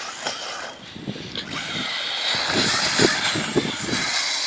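Small electric motor of a 1/18-scale RC stadium truck whining steadily and high-pitched as it drives over grass, with irregular low thumps.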